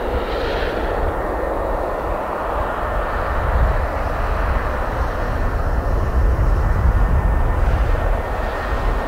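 Ilyushin Il-76's four turbofan engines running as the airlifter approaches to land: a steady, loud jet noise with a thin high whine, loudest about two-thirds of the way in.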